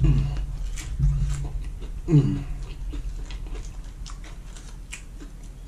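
A person crunching and chewing Doritos Poppin' Jalapeño nachos, the chips crackling in thin clicks through the second half. In the first couple of seconds come three short, low vocal sounds about a second apart.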